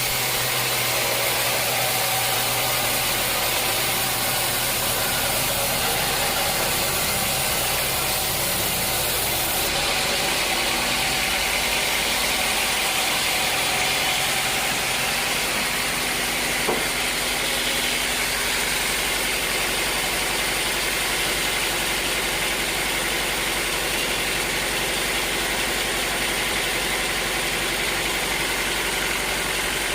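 Sawmill machinery running steadily: a constant mechanical drone with a strong high hiss. There is a slight shift in the hiss about ten seconds in and a single brief click later on.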